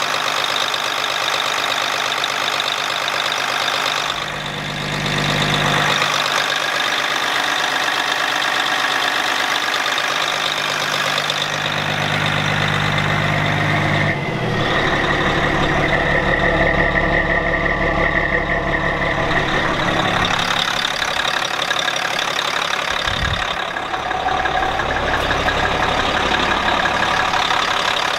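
The Caterpillar six-cylinder turbo diesel of a 1990 Peterbilt semi idling steadily, freshly started after months of sitting. About fourteen seconds in a higher steady whine joins the running engine and fades out again around twenty seconds.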